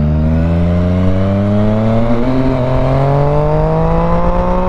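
Yamaha FZ-09's three-cylinder engine pulling in one gear, its pitch rising smoothly and steadily as the motorcycle accelerates, over low wind rumble.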